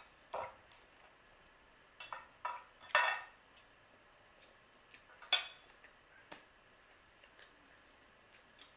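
Knife and fork clinking and scraping on a plate: a scatter of short, quiet clicks and scrapes, with the sharpest click about five seconds in, then only a few faint ticks.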